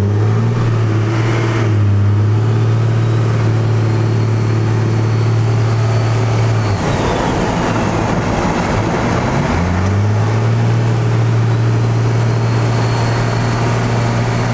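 Compound-turbocharged first-generation Cummins 5.9 L 12-valve inline-six turbodiesel, heard from inside the cab while driving. It holds a steady drone, falls away about halfway through, then climbs back up and holds steady again.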